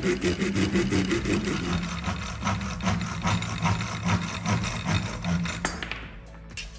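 Saw cutting wood in quick, even rasping strokes, which fade away near the end.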